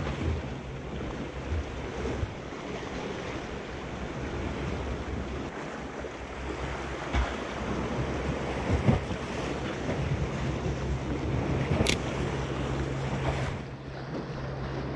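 Wind buffeting the microphone over the sound of the sea, with the steady low drone of a fishing boat's engine running underneath. A few short clicks stand out.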